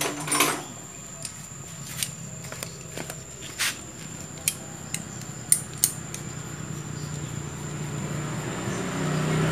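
Metal hand tools being handled: a short clatter about half a second in, then a dozen or so scattered sharp clinks and taps over the next five seconds.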